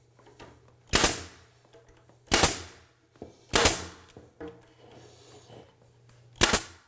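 DeWalt pneumatic brad nailer firing brad nails into a door jamb: four sharp shots, three about a second apart and the last near the end, each with a short tail of air.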